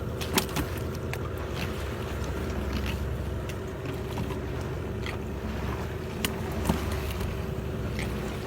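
Boat engine running steadily at a constant speed, with a few light clicks and knocks over it.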